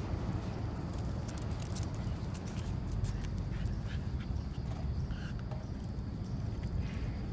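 Steady low background rumble, with scattered light clicks and rustles as a Shiba Inu walks on the pavement and noses into a hedge.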